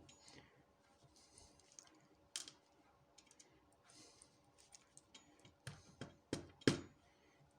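Scattered small clicks and taps from handling the pins and tools of a pin-tumbler rim cylinder as it is taken apart, with a few sharper clicks in the last two seconds.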